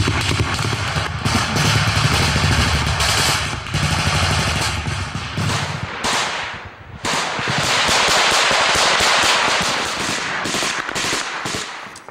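Sustained automatic gunfire: rapid bursts of rifle and machine-gun fire at close range. There is a brief lull about six and a half seconds in, and the fire breaks into separate shots and short bursts near the end.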